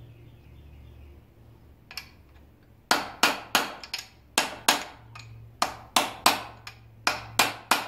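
Hammer striking a driver tube to seat the crankshaft timing gear onto the crank snout of a Chevrolet 350 small-block V8: about a dozen sharp ringing metal blows, roughly three a second, starting about three seconds in after one lighter tap.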